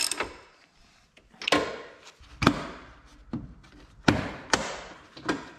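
A plastic bumper trim panel being pushed and knocked into place by hand in a pickup's front bumper: about six sharp knocks and clunks, starting about a second and a half in.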